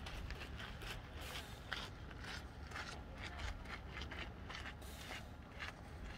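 Light, irregular rustling and scraping from a man doing weighted pull-ups with a stone-filled backpack, over a steady low rumble.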